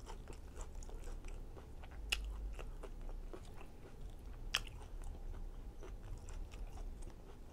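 A person chewing a mouthful of chicken fajita, with many small wet mouth clicks and two sharper clicks, about two seconds and four and a half seconds in.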